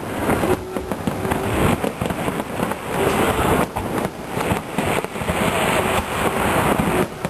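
Aerial fireworks shells bursting in a rapid, continuous barrage, with many overlapping bangs and crackles and no pause between them.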